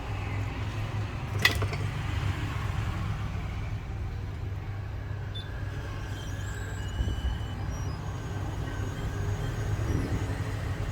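Steady low hum of background noise, with one sharp click about a second and a half in.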